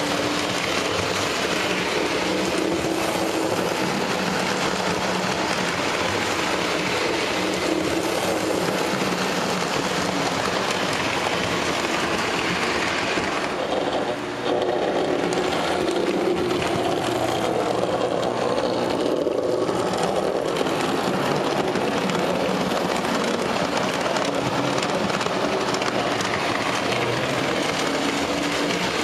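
Lionel 2245 Texas Special O-gauge electric model train running on three-rail tubular track: a steady motor and gear hum with the wheels rattling over the rails. There is a brief dip in level about fourteen seconds in.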